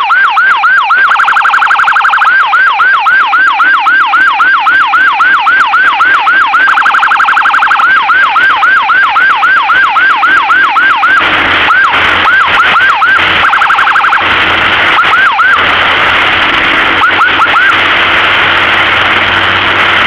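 Electronic emergency-vehicle siren in fast yelp mode: quick rising-and-falling wails about four a second, broken three times by a brief steady buzzing tone. After about eleven seconds the yelps thin out to a few scattered ones over louder vehicle and road noise.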